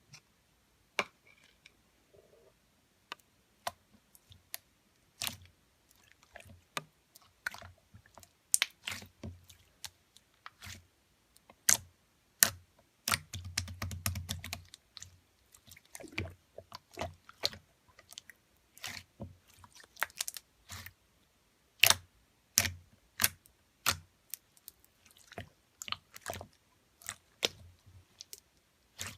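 Clear slime being pressed and worked by hand, giving off irregular sharp clicks and pops, with a denser, heavier patch of squishing about halfway through.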